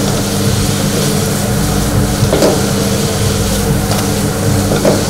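Steady, loud mechanical drone of restaurant kitchen equipment, with several low tones held over a noisy rush. Brief short sounds rise above it about two and a half seconds in and again near the end.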